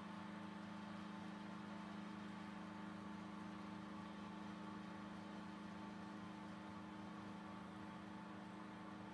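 Thojomech TFC11 CNC milling machine running steadily as its spindle drives a 12 mm four-flute end mill through aluminium under flood coolant: an even hum with a few steady tones and no change in pitch or level.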